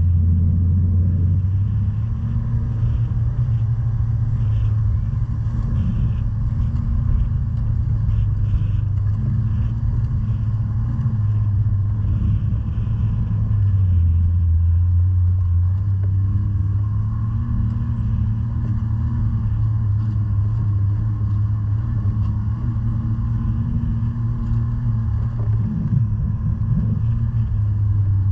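Snowmobile engine running at a steady cruise, heard from the rider's seat, its pitch dipping and rising slightly a few times as the throttle changes.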